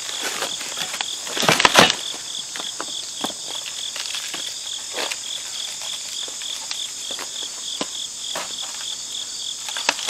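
Insects chirping steadily in a fast pulsing rhythm. Over it come scattered clicks and rustles of foam wrapping and cardboard being handled, with one loud rustle about a second and a half in.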